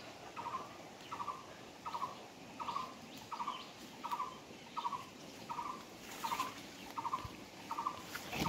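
A short animal call repeated evenly, about three calls every two seconds, over faint outdoor background noise, with a sharp knock right at the end.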